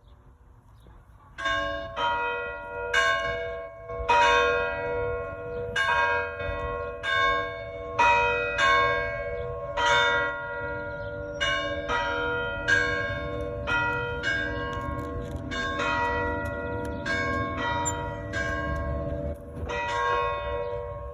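Church bells ringing, starting about a second and a half in: repeated strokes about twice a second, each one ringing on into the next.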